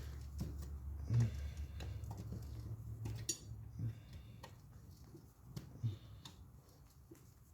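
Scattered light metal clinks and knocks from hand tools being handled around the ATV's axle carrier bolts, a few separate strikes several seconds apart.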